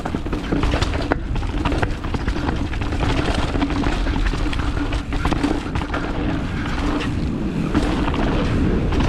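Mountain bike rolling down a rocky dirt trail: knobby tyres crunching over dirt and stone, with frequent knocks and rattles from the bike over the rough ground. A steady hum runs underneath.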